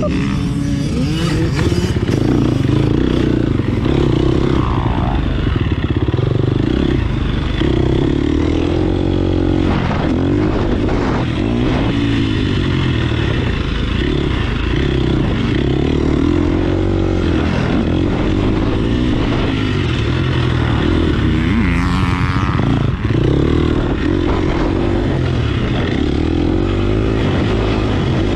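Husqvarna dirt bike engine heard close up from the bike, revving up and falling back again and again as the rider goes through corners and gets back on the throttle.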